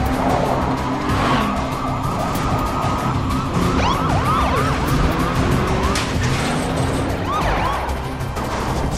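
Police car siren wailing, then switching to rapid yelps about halfway through and again near the end, over the engines of a fleeing SUV and the pursuing police cruiser.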